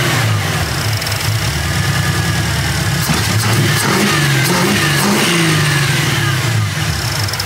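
AMC 304 V8 on ACES throttle-body fuel injection, revved by hand at the throttle linkage in a few short blips that fall back to idle. Its EFI tune for the return to idle when the throttle closes is still being refined.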